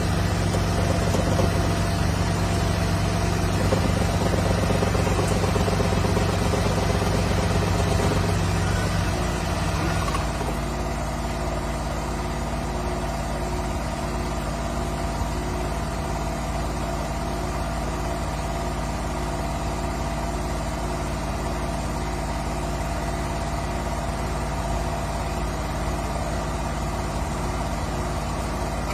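Honda N-BOX Custom's 660 cc three-cylinder engine idling steadily. A deeper low hum drops away about ten seconds in, leaving a quieter, even idle.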